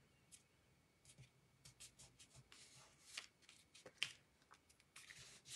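Faint rustles and scratches of hands pressing and smoothing glued pink cardstock pieces together, a series of short brushing sounds with one sharper tick about four seconds in.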